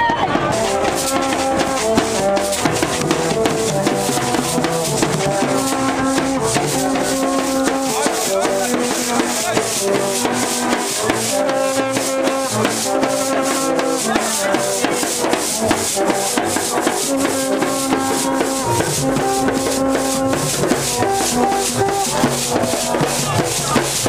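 Rara street band playing: long bamboo vaksin trumpets sound short held notes in a repeating pattern over steady, dense drumming on hand drums and stick-beaten drums.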